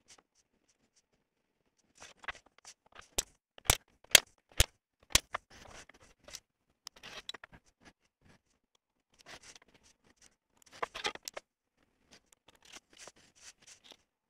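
Scriber scratching lines into an aluminum plate along a steel rule, in short scraping strokes. Five sharp metallic clicks come between about three and five seconds in and are the loudest sounds.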